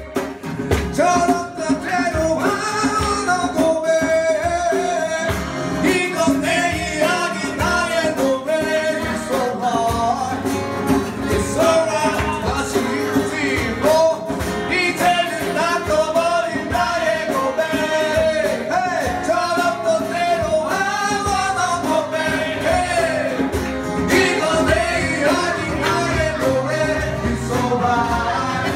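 Live acoustic band playing a song, a male voice singing into a microphone over keyboard accompaniment, amplified through a small Behringer EPA900 PA system in a small room.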